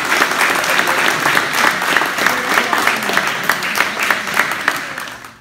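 A group of people applauding, a dense run of hand claps that dies away near the end.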